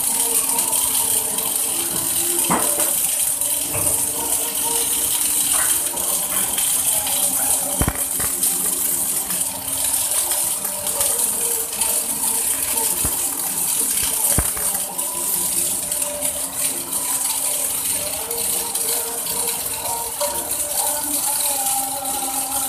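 Mechanized orbital MIG (gas metal arc) welding on a pipeline girth weld: a steady crackling hiss from the arc, with a steady machinery hum underneath and a few sharp knocks.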